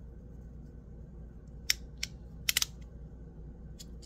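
A few sharp clicks from a Ti Rhythm fidget slider being handled: a single click, another soon after, then a quick run of three about two and a half seconds in, over a faint low hum.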